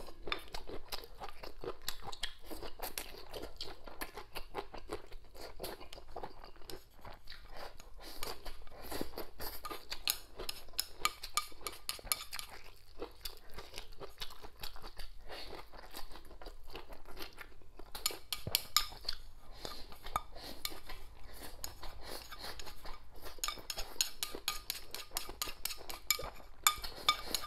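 A person chewing and crunching food close to a clip-on microphone, with chopsticks clicking against a bowl. The clicks come thicker near the end as the bowl is scraped out.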